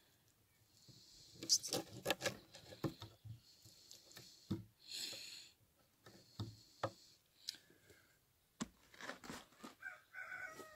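Knife scraping scales off a small fish on a wooden board: short rasping strokes mixed with irregular sharp taps of the blade and fish against the wood.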